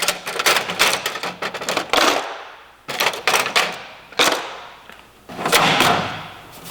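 Metal hand tools clattering and clanking as they are lifted out of a steel toolbox and set down, in quick runs of sharp ringing clanks with brief lulls about two and five seconds in.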